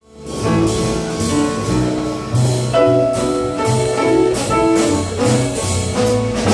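Live jazz band of grand piano, upright bass and drum kit playing an instrumental passage, with a moving bass line under piano chords and steady cymbal strokes. It fades in from silence at the very start.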